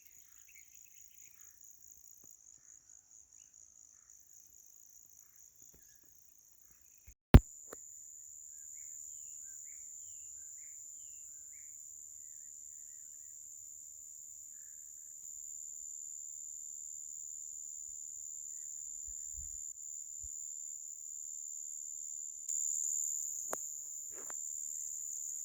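Insects shrilling at a high pitch, a fast pulsing trill for the first few seconds, then a continuous steady drone. A single sharp click about seven seconds in, then a few short bird chirps.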